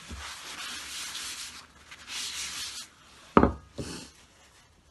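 Paper tissue rubbing over a die-cast metal toy plane, wiping off cleaning fluid, in two spells of rubbing; then a sharp knock as the metal model is put down on the table, with a lighter knock just after.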